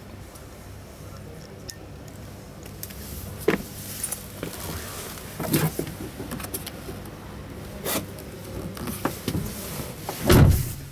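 Scattered clicks and knocks from handling the fittings inside a Mercedes-Benz Sprinter cab, ending in a heavier, low thump near the end, over a steady low background hum.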